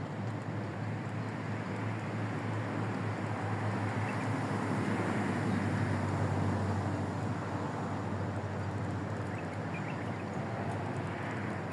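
Steady low motor-like rumble with a hum, swelling to its loudest about halfway through and then easing, over a steady outdoor background hiss.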